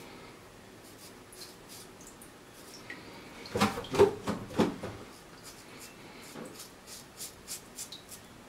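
Personna Monsieur Charles shavette blade scraping stubble off a gel-covered scalp in short strokes, with a louder cluster of rubbing strokes about halfway through and quick strokes near the end.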